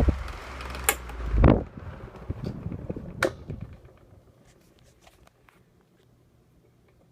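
1985 Tozai 12-inch table fan being switched off. There is a click, then a thump about a second and a half in, and the motor hum and blade hiss stop. A few scattered clicks and knocks follow before it goes quiet.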